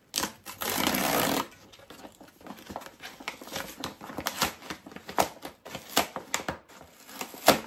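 A cardboard parcel being torn open by hand. A loud ripping noise lasts about a second near the start, then irregular rustling, crinkling and small clicks of card and paper as the packaging is pulled apart.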